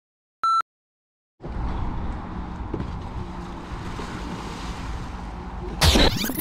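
A single short electronic countdown beep, then a moment of silence and steady outdoor wind-and-water ambience. Near the end, a loud splash as a person falls off an inflatable stand-up paddleboard into the water.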